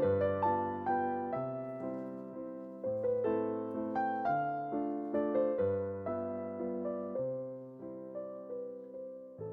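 Solo piano background music: a light classical-style piece with bass notes and a melody struck in a steady, even rhythm.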